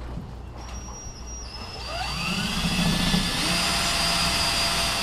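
Cordless drill spinning up about two seconds in, its motor whine rising in pitch, then running steadily and louder as it bores a pilot hole through the plastic paddleboard.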